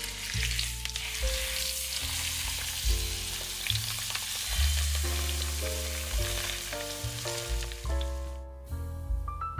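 Food sizzling in a hot frying pan, with background music under it; the sizzle stops about eight and a half seconds in.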